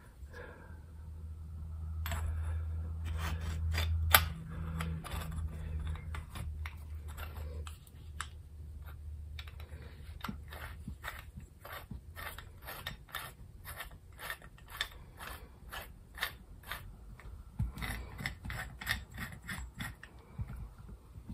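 Spring-loaded jaw mechanism of a vintage combination wrench clicking as it is worked over and over, about two to three clicks a second. A low hum swells and then fades out in the first several seconds.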